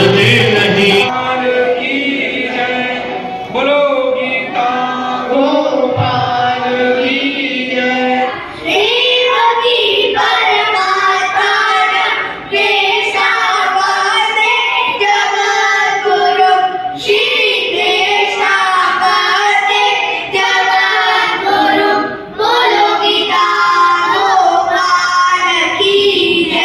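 A group of children singing a devotional chant together, unaccompanied, with short breaks between lines. In the first second a man's singing with a dholak drum cuts off.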